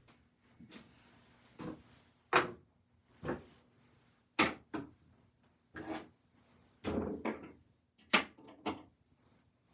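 Irregular knocks and clunks of wooden pieces and hardware being handled and set down on a workbench, about a dozen in all, the sharpest about two, four and eight seconds in.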